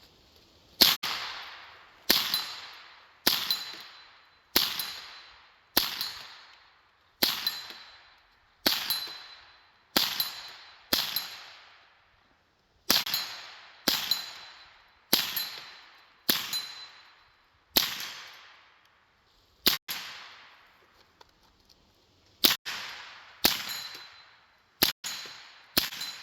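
AR-15 with a CMMG .22 LR conversion kit firing single shots, about nineteen in all at roughly one every second or so, each sharp report trailing off in an echo. A short pause comes before the last four shots near the end.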